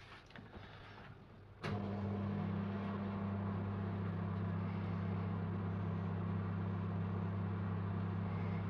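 Microwave oven switched on with a click a little under two seconds in, then running with a steady low hum.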